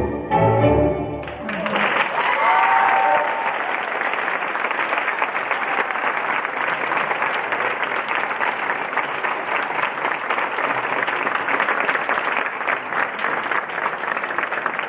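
Tango music with violins ends on its last notes about a second in, and the audience breaks into applause that keeps going steadily. A voice calls out briefly about two seconds in.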